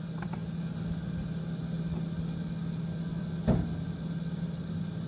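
A steady low hum, with one short knock about three and a half seconds in.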